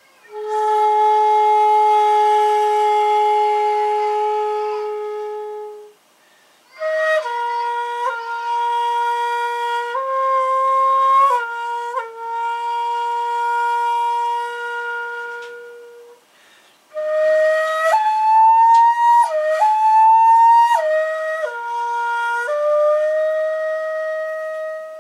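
Hitoyogiri, a short end-blown Japanese bamboo flute, playing the prelude sequence in the hyojo mode: three breath-long phrases. The first is one long steady note. The next two step between several held notes, with quick grace-note flicks between them.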